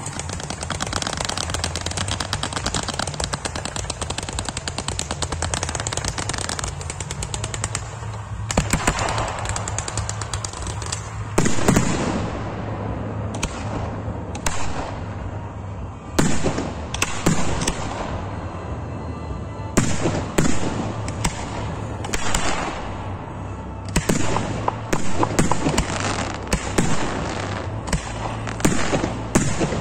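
Professional fireworks display. Dense, rapid crackling runs for the first eight seconds or so. After that comes a string of separate sharp bangs as shells and battery shots burst, at times several a second, over a steady low hum.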